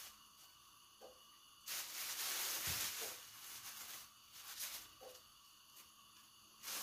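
Thin plastic bag rustling and crinkling as hands dig floured fish out of the cornmeal inside it. There are a few short rustles and one longer stretch of about two seconds, starting about two seconds in.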